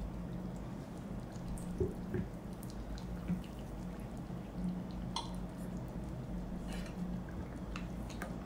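A steel spoon scooping thin curry liquid in a frying pan and letting it drip and trickle back, with light clicks of the spoon against the pan over a steady low hum.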